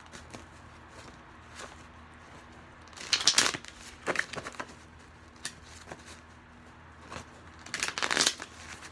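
A deck of oracle cards shuffled by hand: two riffle shuffles, about three seconds in and again near the end, each a short rush of flicking cards, with soft taps and slides of the cards between.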